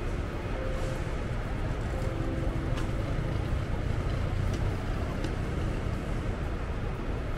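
Steady background din of a large airport terminal hall: an even low rumble and hiss, with a few light clicks.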